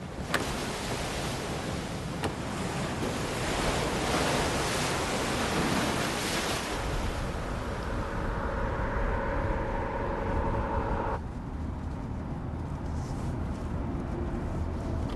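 Wind and sea surf, a steady rushing noise. From about seven seconds in, steady tones join it, and the sound changes abruptly about eleven seconds in.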